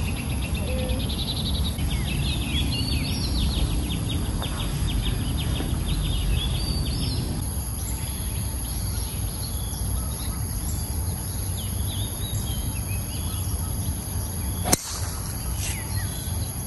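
Birds chirping in quick trills over a steady low outdoor rumble, then near the end a single sharp crack of a driver striking a golf ball off the tee.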